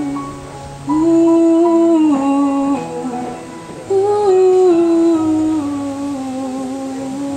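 A woman singing long held notes into a microphone, amplified through PA speakers over a backing track, with no clear words. Two loud phrases start about one and four seconds in, and the second eases into a softer, long-held note.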